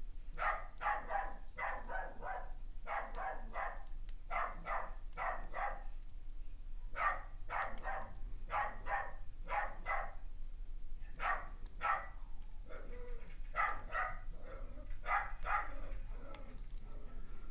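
A dog barking over and over in quick runs of several barks, with short breaks between the runs.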